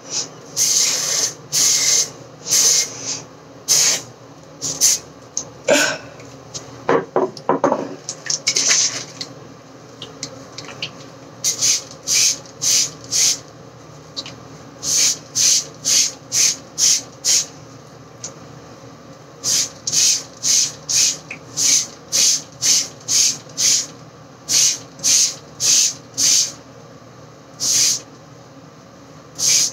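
Plastic trigger spray bottle misting hair: dozens of short hissing spritzes in quick runs of about two a second, with pauses between the runs. A few duller rubbing strokes come about seven seconds in.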